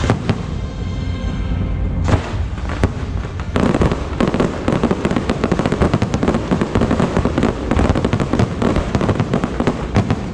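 Aerial firework shells bursting overhead: a few separate bangs in the first three seconds, then, from about three and a half seconds in, a dense run of rapid bangs and crackles as many shells burst at once.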